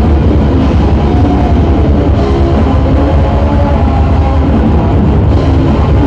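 A metal band playing live: heavily distorted guitars and bass over a drum kit, loud and dense, with a heavy low end.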